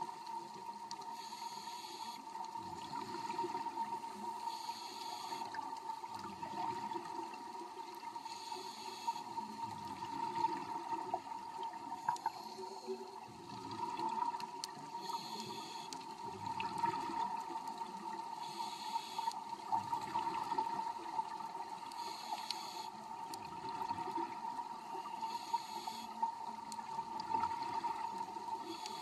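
Underwater sound of scuba divers exhaling through their regulators: a bubbling rush every two to four seconds, over a steady hum.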